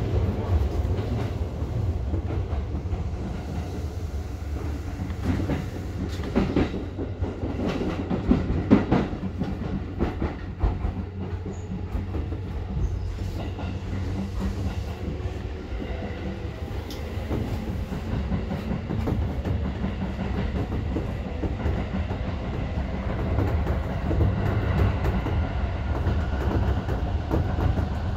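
Electric commuter train running along the track, heard inside the driver's cab: a steady rolling rumble with wheels clacking over the rails, most sharply in a cluster of clacks about six to nine seconds in.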